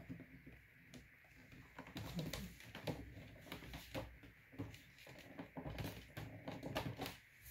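Soft, scattered taps, knocks and scrapes of hands handling a large cardboard doll display box.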